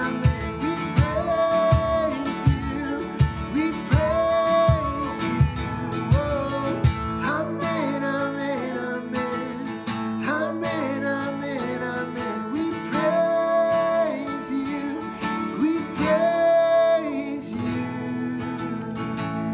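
Recorded music: acoustic guitar strumming under a sung melody, with a steady low beat about two thumps a second that drops out about seven seconds in.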